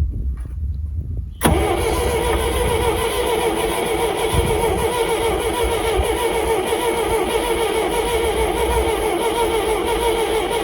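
Old Valmet forklift engine being cranked by its starter motor. It comes in suddenly about a second and a half in and keeps churning steadily without the engine catching, because the ignition is giving no spark.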